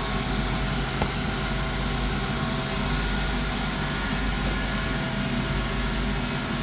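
Steady electrical hum of cobbler's heat pliers heating a heel nail red hot to loosen it, with one short click about a second in.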